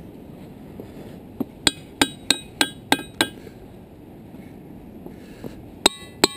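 A hammer striking the diabase boulders of a ringing-rock field. About seven quick blows, roughly three a second, each giving a short bell-like ring, then a pause and two more blows near the end that ring on longer with clear tones.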